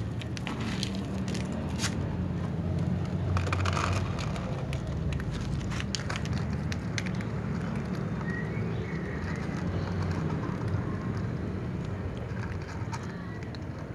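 Several cats crunching dry kibble from a plastic bowl: scattered sharp clicks and crackles, busiest in the first half, over a steady low rumble.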